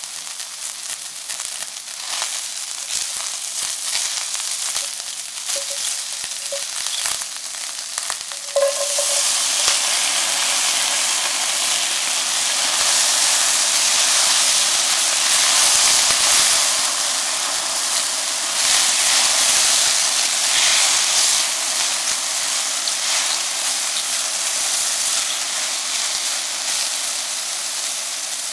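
Chestnut mushrooms sizzling in a stainless steel pan; about eight and a half seconds in the sizzle jumps suddenly louder as edamame go into the pan, then the mushrooms and beans keep sizzling while they are stirred with a spatula.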